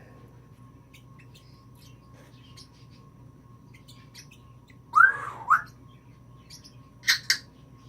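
Timneh African grey parrot vocalizing. Soft clicks and chirps come first. About five seconds in there is a loud two-part squeak that rises and falls, and near the end two short, sharp squawks.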